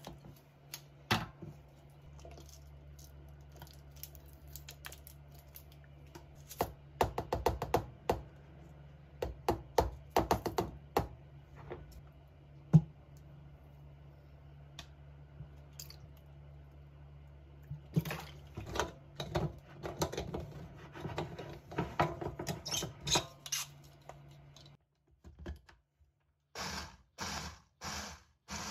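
Kitchen tongs clacking and knocking against a glass jar as blocks of tofu are dropped in, a long run of irregular clicks and knocks. Near the end a small blender starts running in short, even pulses.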